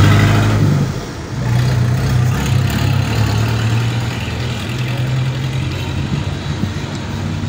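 A vehicle engine idling, a steady low hum.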